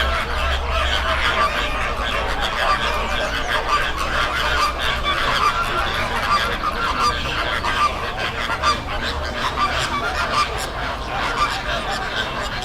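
A flock of American flamingos honking and calling, many goose-like calls overlapping without pause, over a steady low rumble.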